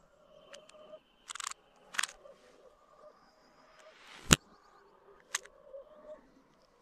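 Revolver shots played in reverse: four sharp cracks, the loudest about four seconds in, preceded by a swell that builds up to the crack (its echo running backwards).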